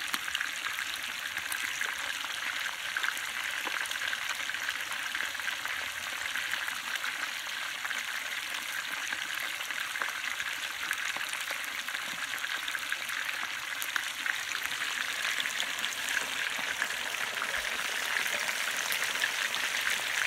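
Chicken pieces deep-frying in hot oil in a disco, a wide plow-disc pan: a steady sizzle dense with fine crackling pops.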